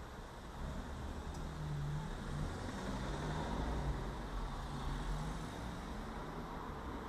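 Street traffic: a road vehicle passing, its low engine rumble swelling over the first few seconds and then easing off a little.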